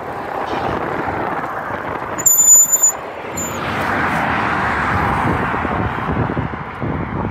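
Road traffic going by, with a low wind rumble on the microphone. About two seconds in a brief, loud, high-pitched squeal cuts through. Then a passing car's tyre hiss swells and fades.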